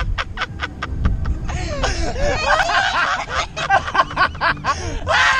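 Several young people laughing hard on a thrill ride. At first it comes in quick, even ha-ha pulses; from about a second and a half in, several voices laugh over each other in high, squealing swoops, with a low rumble underneath.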